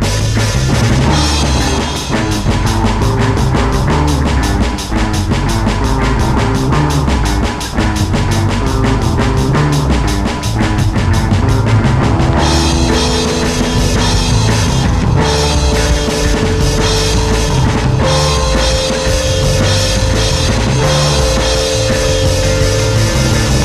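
Background rock music with a driving drum kit: fast, even drum hits through the first half, then held notes over the beat from about halfway in.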